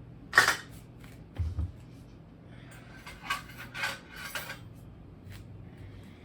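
Kitchen dishes and utensils being handled on a countertop: a sharp clink about half a second in, a couple of dull knocks, then a run of clinks and rattles.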